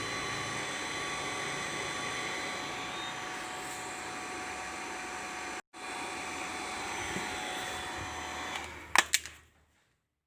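Electric household water pump running steadily with a constant whine, broken by a short gap about halfway through. Two sharp clicks come near the end, then it falls silent.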